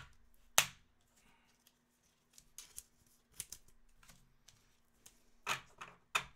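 Rigid plastic card holders (top-loaders) clicking and tapping as cased trading cards are handled and stacked: a sharp click about half a second in, a few soft ticks around the middle, and a quick cluster of clicks near the end.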